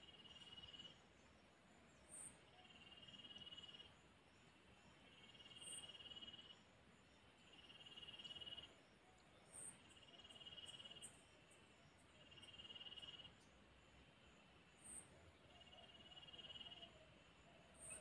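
Faint insects calling, likely crickets. A buzzy trill lasting about a second repeats every two seconds or so, with a short, sharp, very high chirp every few seconds.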